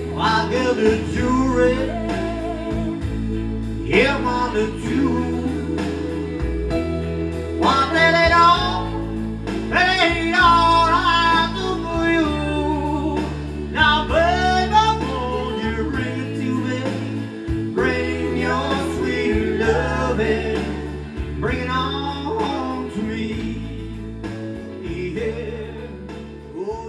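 Live music: a man singing into a microphone over electric guitar and a steady bass line, dying down near the end.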